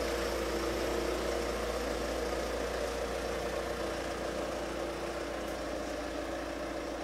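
Steady low electrical hum, with a constant mid-pitched tone held over it: the drone of running electrical equipment.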